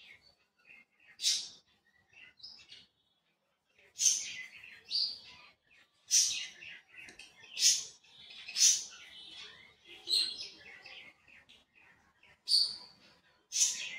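Birds chirping in short high-pitched calls every second or so.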